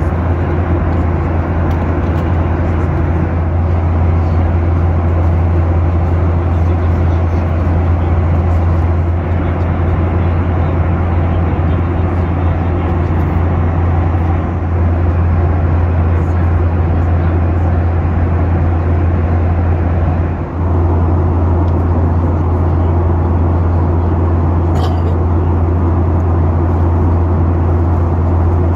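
Boeing 737 passenger cabin in cruise: the steady, loud drone of engine and airflow noise, heaviest in the low end, with a brief dip about two-thirds of the way through.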